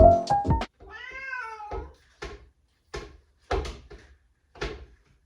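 A domestic cat meowing: one drawn-out meow about a second in, then a string of short, clipped meows.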